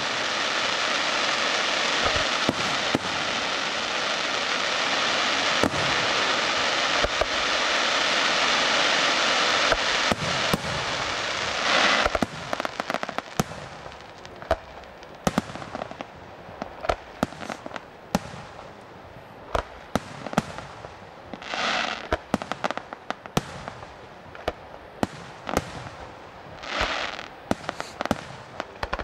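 Aerial fireworks display: for about the first twelve seconds a dense, unbroken wash of noise dotted with bangs, then separate sharp shell bursts, with a couple of brief hissing swells in the second half.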